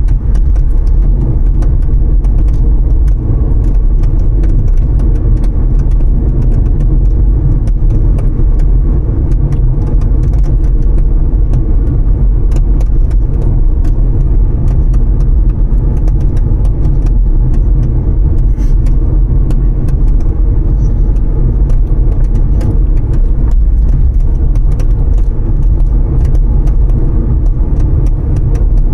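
Kia ProCeed's trunk lid rattling while the car drives: many short, irregular clicks and ticks over steady road and engine rumble.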